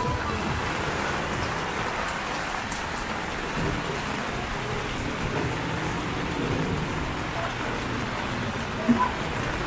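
Heavy rain pouring steadily, an even hiss of rain on wet ground and surfaces. A brief, sharper sound cuts through about nine seconds in.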